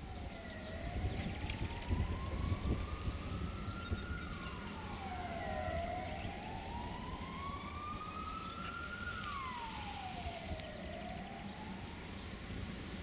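A wailing siren, its pitch rising slowly and falling more quickly in cycles about five seconds long, over a steady low rumble.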